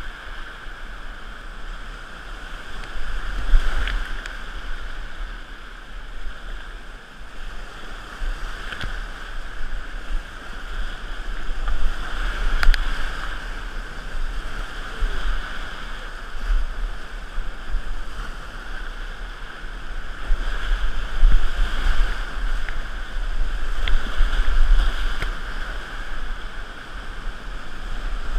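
Whitewater rapids rushing around a kayak as it is paddled through them, the water noise swelling and easing, with a few sharp knocks.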